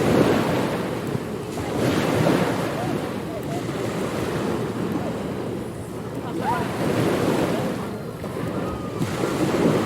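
Ocean surf: waves washing in, the rushing swelling and falling back every two to three seconds.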